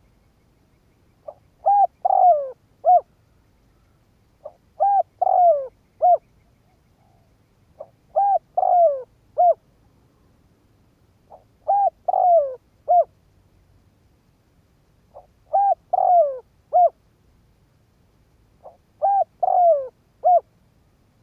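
Spotted dove (cu gáy) singing its decoy call, used to provoke wild doves. It gives six repeated phrases about every three and a half seconds. Each phrase is a faint lead-in note, three coos with a falling middle one, and a short final coo.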